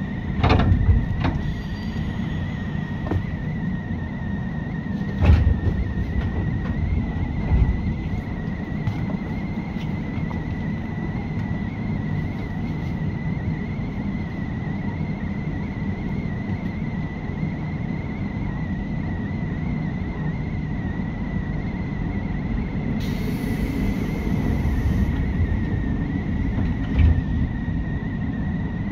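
A JR 201 series electric commuter train running, heard inside the car near its line breaker. There is a steady rumble with a constant high whine over it. A loud clunk comes right at the start, a few lighter knocks follow, and a brief hiss comes about two-thirds of the way in.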